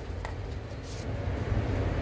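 Steady low rumble of a paint spray booth's air handling, with a faint click about a quarter second in.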